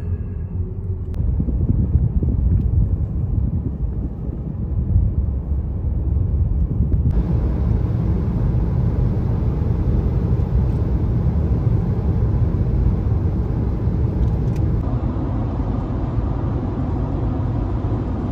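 A car driving: steady low road and engine rumble.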